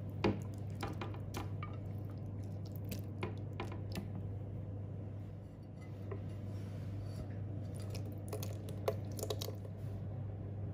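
Soft roasted vegetables and oil sliding and plopping from a glass baking dish into a blender jar, with scattered clinks and knocks of the dish against the jar, the loudest about a quarter second in. A steady low hum runs underneath.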